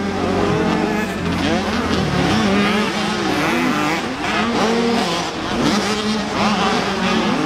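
Several Supermini dirt bikes racing around the track, their engines revving up and down over one another as they take jumps and turns.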